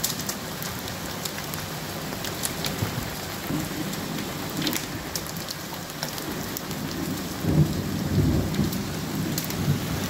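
Heavy hail shower: a dense steady hiss of hail and rain peppered with sharp clicks of hailstones striking the window and sill. A low rumble of thunder comes about eight seconds in.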